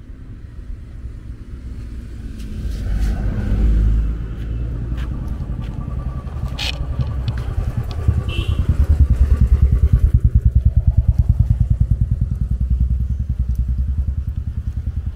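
A motorcycle engine running at low road speed as the bike comes up and passes close by, its quick even firing pulses loudest a little past the middle. Another vehicle passes a few seconds in.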